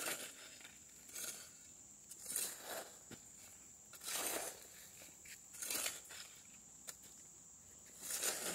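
Hoe scraping and pushing loose sand, in short rasping strokes about every second and a half.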